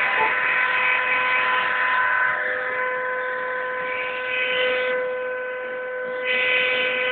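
CNC machine running: a steady high whine, with a hiss over it that drops away about five seconds in and returns a second later.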